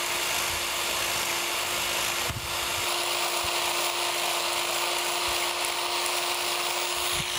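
Biax power scraper running, its reciprocating blade scraping across the cast-iron ways of a metal planer's cross head: a steady, even mechanical scraping with one brief break about two seconds in. This is the second, cross-direction pass that lays a crosshatch pattern on the surface before it is checked on the surface plate.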